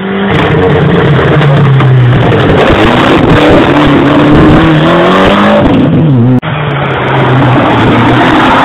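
Rally car engines revving hard through a hairpin, the pitch climbing and falling with throttle and gear changes. About six seconds in the sound breaks off abruptly and a second rally car's engine takes over, revving the same way.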